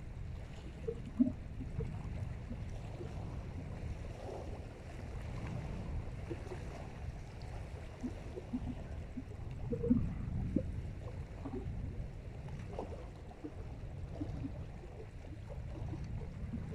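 Small waves lapping and gurgling at the lake's edge, a run of little irregular plops, two of them sharper (about a second in and again around ten seconds in), over a steady low rumble.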